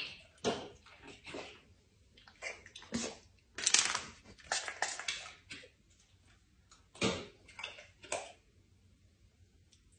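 Water splashing and sloshing in a bathtub in short, irregular bursts with brief pauses between them.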